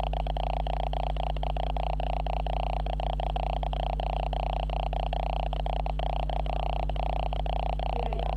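Steady electrical buzz and hum generated by the camera itself, a fault noise in its audio, flickering with rapid irregular dropouts.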